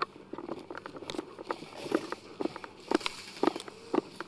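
Footsteps of a player walking across grass, about two steps a second, with a rustle through the middle.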